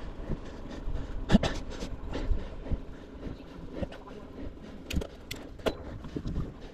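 Riverside 900 bike being ridden over an uneven surface: steady wind rumble on the camera's microphone with irregular knocks and rattles from the bike over bumps, the loudest about a second and a half in and near the end.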